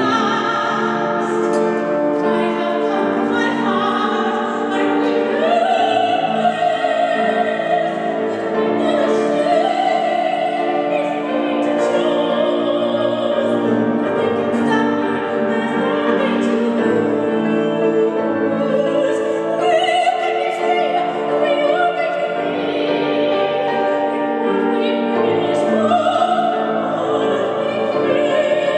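Female classical soprano singing long held notes with vibrato, accompanied by a grand piano.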